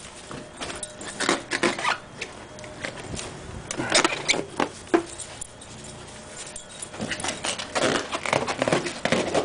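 West Highland terrier puppy mouthing and pawing at an inflated rubber balloon: bursts of rubbery squeaks and scuffs, about a second in, again around four seconds in, and in a longer run from about seven seconds in.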